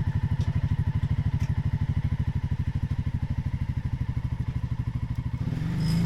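Tractor engine idling with an even chugging pulse, then picking up revs and running smoother about five and a half seconds in.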